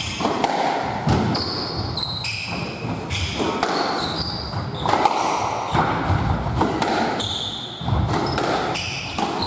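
Squash rally: the ball smacking off rackets and the walls about once or twice a second, with short high squeaks of court shoes on the wooden floor and scuffing footsteps between the shots.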